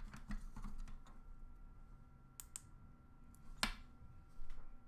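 Light clicks and taps of trading cards and their plastic holders being handled, a few small clicks in the first second and one sharper click a little past the middle, over a faint steady hum.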